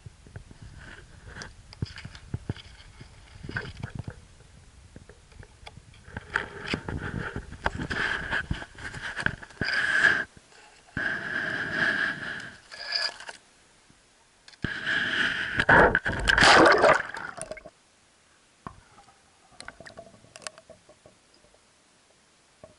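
Handling noise from an action camera in its waterproof housing: scraping and rubbing against grass and reeds in several loud bursts, with water sloshing and gurgling as it goes under. Much quieter over the last few seconds.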